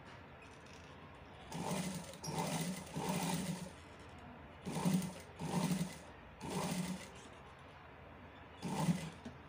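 Sewing machine stitching through fabric in about seven short runs of half a second to a second each, stopping and starting as the cloth is guided under the needle.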